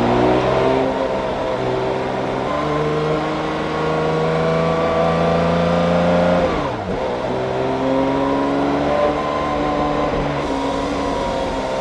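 Porsche 911 S/T's 4.0-litre flat-six engine and exhaust under acceleration, the pitch climbing steadily. About seven seconds in the note dips sharply and briefly, then it carries on at a steady pitch.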